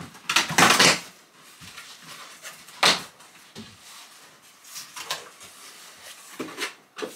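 Cardboard shipping box being opened by hand: flaps pulled back, with scraping, rustling and light knocks of the cardboard. The loudest is a long rasping scrape about half a second in, with a sharp short one near three seconds.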